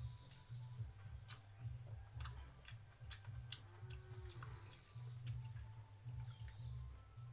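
Eating pakhala (water rice) by hand from steel bowls: chewing, with many small sharp clicks scattered irregularly as fingers work the rice in the bowls, over a low uneven rumble.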